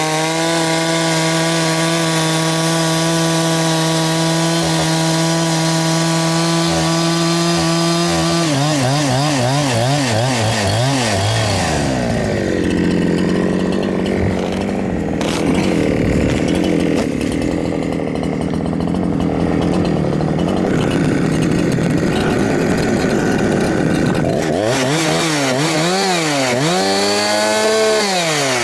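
Huyosen 6524 two-stroke chainsaw (a Husqvarna 365 clone) running at a steady high speed for about eight seconds, then its pitch wavers up and down and drops into lower, rougher running for about twelve seconds. Near the end it revs up and down again and winds back down. Its carburettor mixture screws have just been adjusted.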